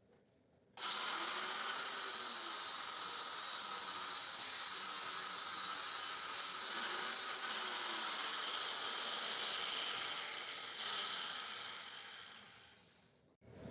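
A power cutting tool working on a scroll compressor's steel shell, a steady hissing cutting noise. It starts suddenly about a second in, then dies away over the last few seconds and stops just before the end.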